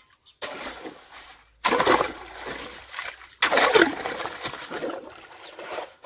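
Water splashing and sloshing as a hoe digs mud and water in a shallow irrigation channel, in three spells of a second or two each, the last two louder.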